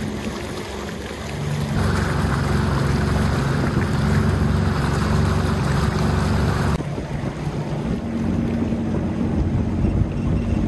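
A 2020 Sea-Doo Fish Pro personal watercraft's three-cylinder Rotax engine running slowly, with water splashing at the hull. From about two seconds in it is louder, with the rush of spray from the wake, and about seven seconds in it drops suddenly back to a quieter, slower run.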